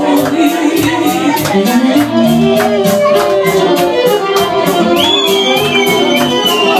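Loud live folk music led by an accordion, over a steady quick beat of high ticks. A high, sliding lead line comes in near the end.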